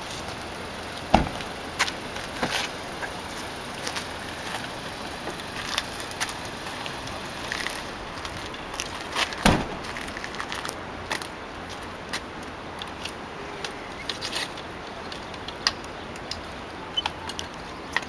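A Kia Soul's doors are shut with a thump twice: once about a second in, and again about halfway through. Scattered small clicks and rattles of gear being handled follow, over a steady outdoor hiss.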